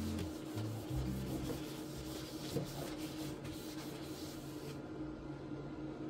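Paper towel rubbing back and forth over a ridged stainless-steel air fryer tray, wiping off the factory polishing compound.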